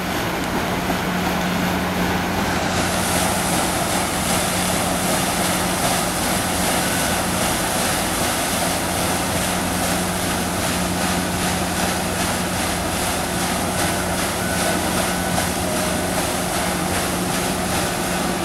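Steady low hum of a boat's engine running, under wind and water noise; the hiss grows louder about three seconds in.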